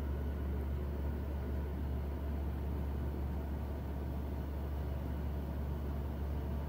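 Steady low mechanical hum with an even rush of air noise from a machine running in the workshop, unchanging throughout.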